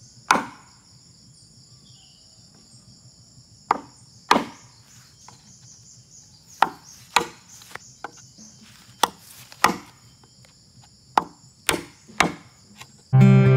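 Machete chopping into a green bamboo pole to cut a notch: about ten sharp strikes, several in quick pairs, over steady cricket trilling. Acoustic guitar music comes in near the end.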